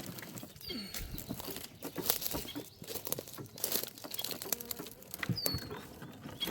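Rustling and crackling of blackberry brambles and leaves being pushed aside and handled, in irregular bursts of crinkling.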